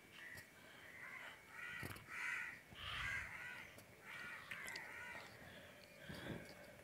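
Crows cawing, a faint series of short, harsh caws repeating every half second to a second.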